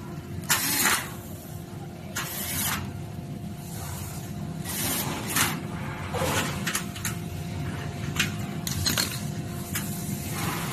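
Cordless drill driving the locking screws into a power rail connector in several short bursts, followed by small clicks and knocks as the rail parts are handled, over a steady machine hum.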